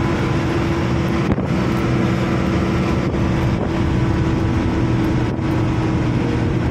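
Truck's engine running steadily at highway speed, heard from inside the cab: a constant hum under road and wind noise.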